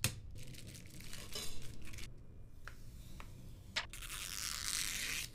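Clear protective plastic film being peeled off an espresso machine, crinkling and crackling in short bursts. Near the end it becomes one longer, hissing peel as a sheet comes away from the group head.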